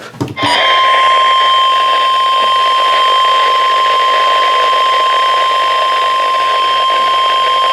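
NOAA Weather Radio 1050 Hz warning alarm tone: one steady, unbroken high-pitched tone that starts about half a second in and holds, over radio static hiss. It signals that a warning, here a National Weather Service flash flood warning, is about to be broadcast.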